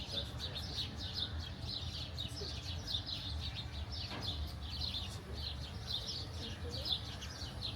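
Birds chirping steadily, with many short, high chirps following one another closely, over a low background rumble.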